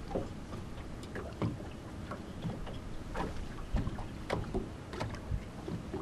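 Irregular light knocks and taps as a flounder is handled and held flat on a fish measuring board, over steady low background noise.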